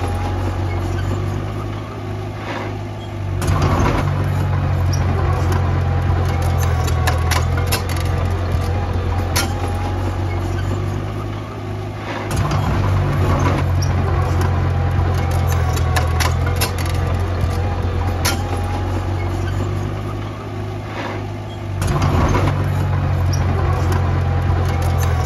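Diesel engine of a small crawler bulldozer working, its low drone easing off and then rising again in cycles about every nine seconds, with scattered sharp clanks.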